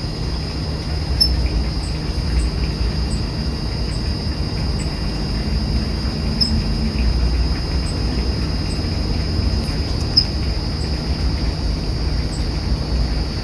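Evening garden ambience: a steady high insect trill with faint regular ticking over a low background rumble, broken by a bird's short sharp chirp three times, a few seconds apart.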